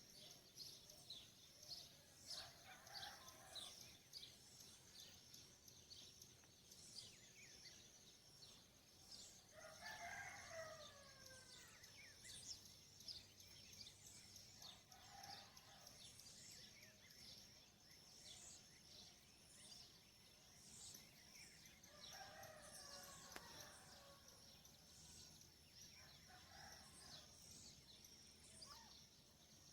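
Faint dawn birdsong: many small birds chirping rapidly and constantly over a steady high-pitched whine. A rooster crows several times, loudest about ten seconds in.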